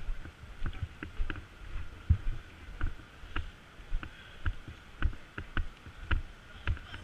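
Footsteps of a person walking at a steady pace, about two steps a second, each a dull thud with a light click or knock of carried gear.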